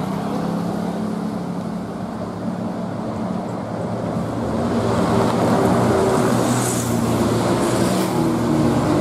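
Bus diesel engine running close by over road traffic noise, pitching up and getting louder from about four to five seconds in as it revs. A brief hiss comes near seven seconds in.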